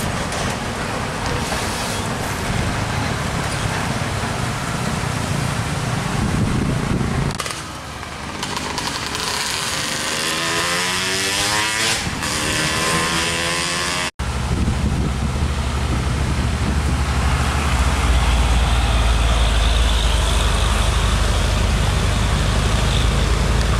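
Heavy diesel truck engine running as it passes. Then several motor scooters go by, their engine notes rising and falling. After a sudden cut, a low, steady diesel truck engine, loudest near the end.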